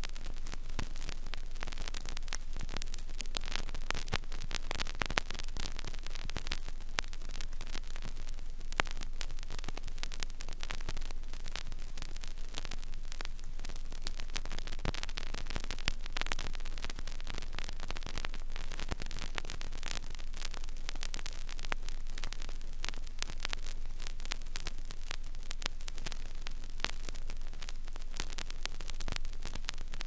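Vinyl record surface noise in a silent stretch of the groove: steady hiss dense with random crackles and clicks, over a low hum.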